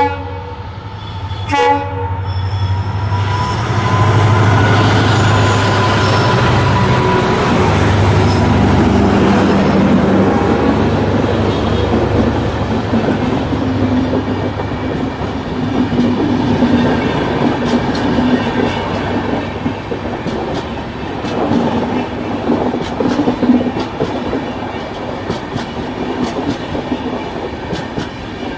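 Diesel-hauled express train passing close. A short horn toot comes about a second and a half in, then the locomotive's diesel engine gives a deep throb for roughly the first ten seconds. The coaches follow, rolling past with a clickety-clack of wheels over the rail joints.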